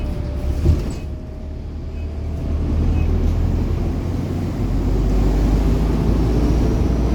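Diesel bus engine running, heard from inside the bus as a steady low drone, with a single knock about half a second in; the engine grows louder from about halfway through as it works harder.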